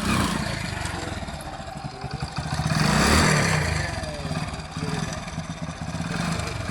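Hero Splendor's single-cylinder motorcycle engine running on the move, rising in level and pitch about three seconds in, then easing off.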